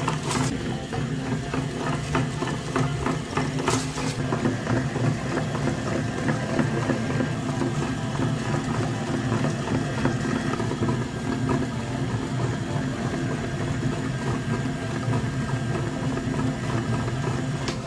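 Electric meat grinder running steadily, its motor humming as it crushes chocolate-coated ice cream cones and extrudes them through the mincing plate, with fine crackling from the crunching wafer and a sharp click about four seconds in.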